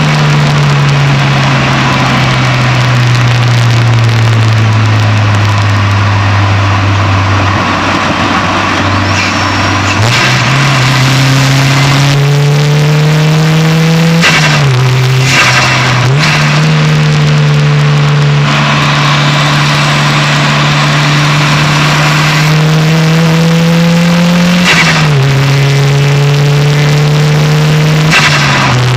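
Turbocharged 4G15 MIVEC four-cylinder engine of a Proton Saga, heard from inside the engine bay while driving. It eases off and falls slowly in pitch for the first ten seconds, then pulls through the gears in rising sweeps. At each gear change the pitch drops sharply with a short rush of air, typical of the blow-off valve venting.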